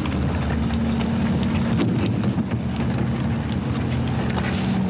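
A steady low engine drone with wind buffeting the microphone and a few light clicks.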